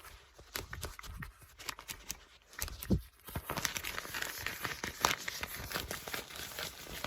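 Book pages being turned and flipped, dry paper rustling with scattered light ticks. The rustle grows denser and fuller about three seconds in.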